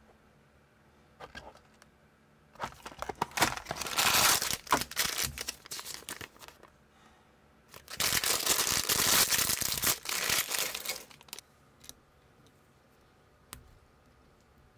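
Packaging of a small building-block set being torn open and its clear plastic parts bag crinkled, in two bursts of a few seconds each. A few faint clicks of small plastic pieces follow near the end.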